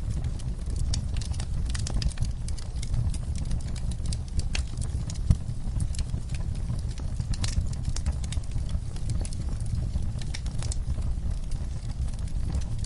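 Wood fire burning in a fireplace, crackling with irregular sharp pops over a low steady rumble of the flames, with one louder pop about five seconds in.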